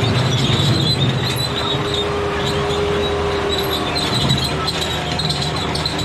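Bobcat S185 skid steer driving on gravel on steel over-the-tire tracks: the diesel engine running under a steady rattle of the tracks, with a high squeal throughout and a mid-pitched whine in the middle.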